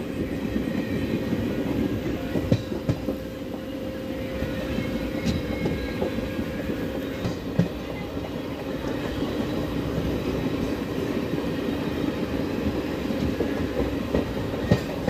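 Passenger train running at speed, heard from aboard the train: a steady rumble and hum with the irregular clack of wheels over rail joints, a cluster of sharper knocks about two to three seconds in and another near the end.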